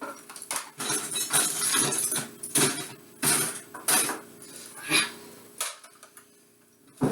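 Kitchen utensils and dishes clattering: a run of irregular knocks and clinks, as of rummaging for a tool, dying away about a second before the end.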